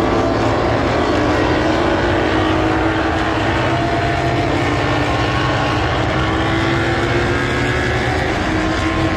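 Racing motorcycle engines running steadily together, several pitches gliding slowly up and down.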